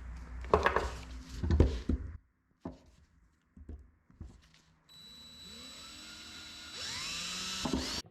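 Knocks and clatter of hard parts being handled, a few light clicks, then a small power tool running steadily from about five seconds in, with its pitch rising shortly before the end.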